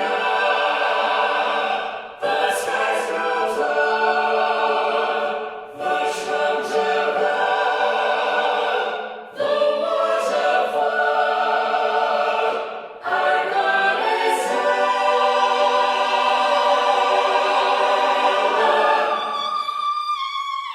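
AI-generated choir singing slow, sustained chords in long phrases, with brief breaks between them near 2, 6, 9 and 13 seconds. A final long held chord fades near the end.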